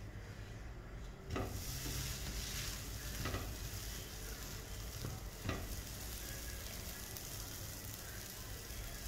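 Pancake sizzling on a hot flat pan: a hiss starts suddenly about a second in, as the pancake is flipped, and keeps on steadily. A spatula scrapes or taps against the pan three times.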